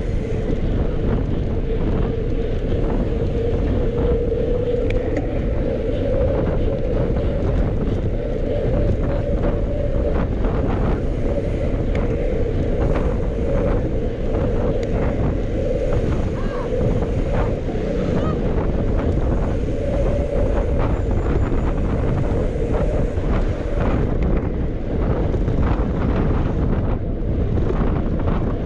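Wind buffeting the microphone of a moving bicycle, with a steady hum from the riding and many small clicks and knocks throughout.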